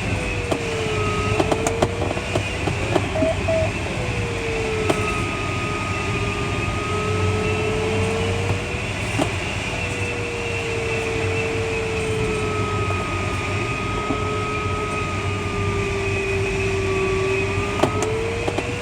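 Steady rush of airflow in the cockpit of a Schleicher ASK21 glider, under a continuous audio variometer tone that slowly wavers up and down in pitch as the glider meets lift and sink along the ridge. A few light clicks in the first few seconds.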